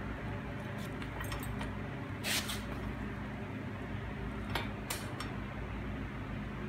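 A few light metal knocks and clinks as a kid's bike frame is handled against a dog cart's tubular metal frame: one a little over two seconds in, then two close together near the five-second mark, over a steady low hum.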